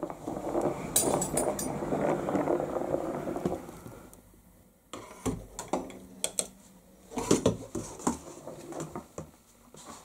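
Rattling, clinking clatter for about three and a half seconds. After a short pause comes a run of separate clicks and knocks as a lever door handle is turned and the door is opened.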